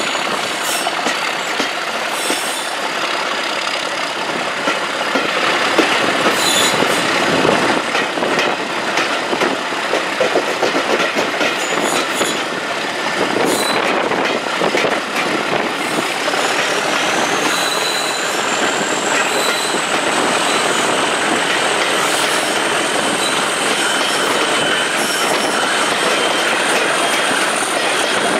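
Diesel-hauled train running on the rails, with a steady noise of the train and scattered clicks of wheels over rail joints. A thin high whine rises about halfway through and then holds.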